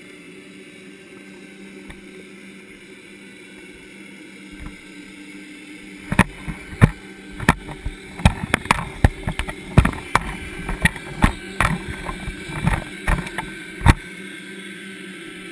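Sharp, irregular knocks and clicks on an underwater camera, about a dozen between roughly six and fourteen seconds in, over a steady low hum.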